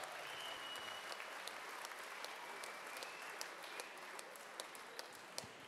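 An audience applauding, a steady patter of hand claps that thins out a little toward the end.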